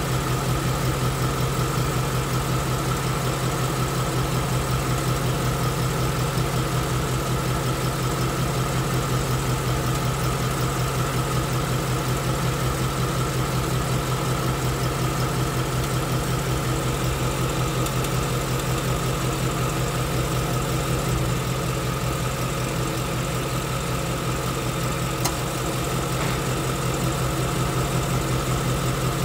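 2016 Ford Mustang GT's second-generation 5.0 Coyote V8 idling steadily.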